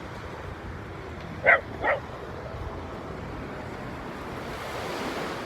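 A dog barks twice in quick succession, over the steady wash of surf.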